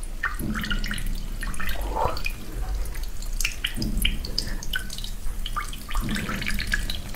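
Supercooled cola trickling from a plastic bottle onto a mound of freshly frozen cola slush in a cupped hand, with many small irregular drips and a few short gurgles as the liquid freezes on contact and the runoff drips away.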